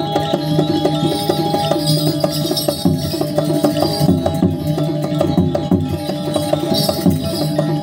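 Balinese gamelan playing a busy, fast pattern of struck, ringing tones.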